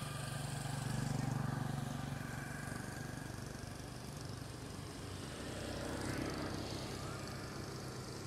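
Engine of a motor vehicle running in the background, a steady low hum that swells about a second in and again near six seconds.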